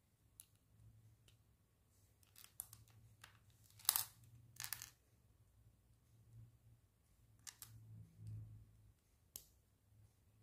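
Small plastic micro building bricks clicking as they are pressed together and handled: a scatter of short sharp clicks, the loudest two about four and five seconds in.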